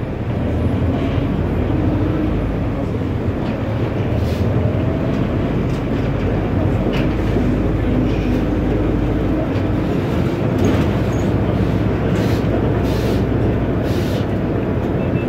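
Cabin sound of an Otokar Doruk 190H city bus driving in traffic: its Deutz turbo-diesel engine running under way with a steady low rumble and road noise. A few short bursts of noise come in the second half.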